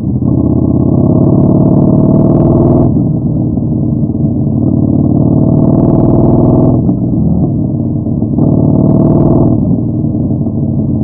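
Yamaha Bolt's air-cooled V-twin running through a Vance & Hines Twin Slash Staggered exhaust while riding. It pulls louder under throttle three times and eases back between each pull.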